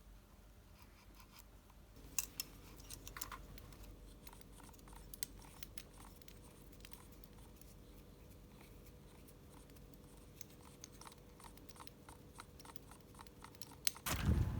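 Faint scattered clicks and scrapes, like small parts or tools being handled, over a low steady hum. A louder knock comes near the end.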